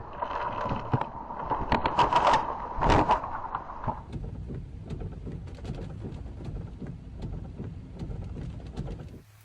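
Storm noise: rain and wind with many sharp crackles and taps, loudest in the first four seconds, where a steady tone also sounds, then settling to a quieter, even hiss of rain.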